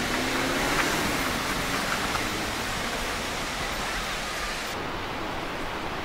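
Steady rushing of a 50 m waterfall, the Velo de la Novia on the Río Claro, plunging into its pool: an even hiss without rhythm. The highest part of the hiss drops away suddenly near the end.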